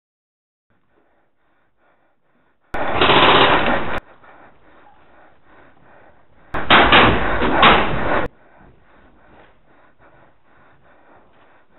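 Two bursts of rapid full-auto airsoft gunfire, the first about three seconds in and lasting just over a second, the second a couple of seconds later and lasting under two seconds, with faint rattling between and after.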